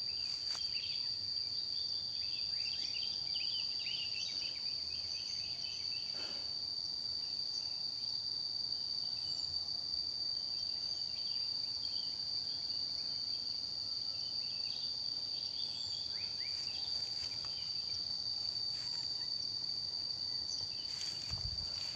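Insects calling: a steady, high-pitched drone that holds one pitch throughout, with scattered shorter chirps and a few brief knocks over it.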